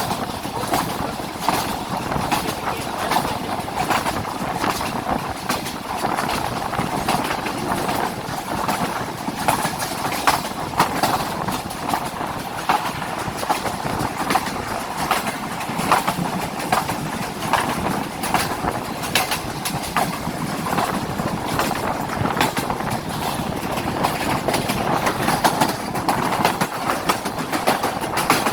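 Awam Express passenger train running steadily on the rails, with a continuous rumble and many sharp wheel-and-rail clicks and clacks.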